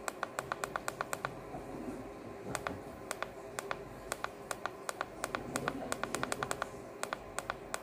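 Button clicks of a Lancol MICRO-200 handheld battery tester, pressed in quick runs of several clicks with short pauses between, stepping the CCA rating setting down toward 100 A.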